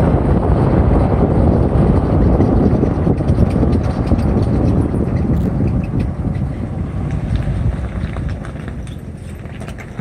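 2007 Jeep Grand Cherokee WK on the move, with a steady road and drivetrain rumble and a repeating chirp from a bad CV joint on the front driveshaft. The rumble eases off near the end.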